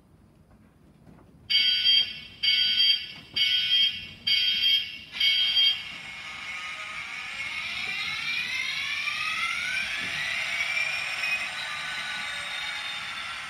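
Sound decoder in a Hornby Class 67 OO-gauge model locomotive playing its diesel start-up sequence: five loud warning beeps about a second apart. The engine sound then starts, its whine rising in pitch and levelling off into a steady run.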